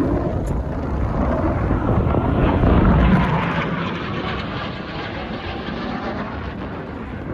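Jet engine roar of a Blue Angels fighter jet passing overhead, swelling to its loudest about three seconds in and then fading.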